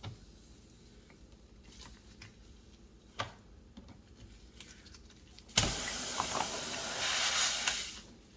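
A few faint tool clicks, then a sharp onset as the nail comes free of the car tire's tread, followed by air hissing out of the puncture for about two and a half seconds before it stops.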